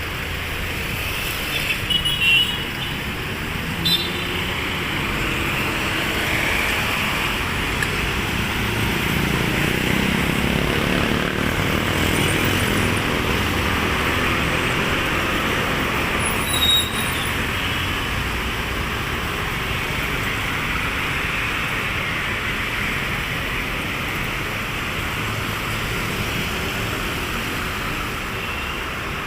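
Street traffic: motor vehicles running and passing in a steady wash of road noise, with a brief sharp sound about two-thirds of the way through.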